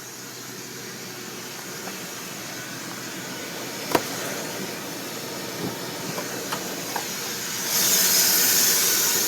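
Steady airy hiss and whistle from under the hood of a 1996 Ford F-150 with the 300 inline-six, a mysterious whistling air noise whose cause is unknown. It grows louder and brighter near the end, with a sharp click about four seconds in.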